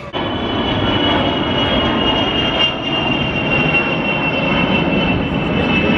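Four turbofan jet engines of a Boeing E-3 Sentry AWACS plane flying past: a steady jet noise with a high whine on top that sinks slightly in pitch.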